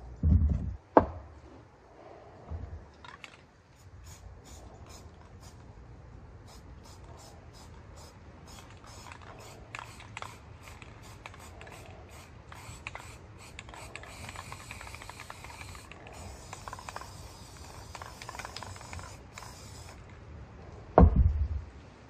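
Aerosol spray paint can hissing in many short spurts as white paint is sprayed onto the board. Two loud low thumps come just after the start and near the end.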